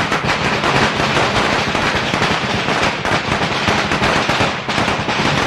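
A string of Chinese firecrackers going off in a rapid, unbroken crackle of pops.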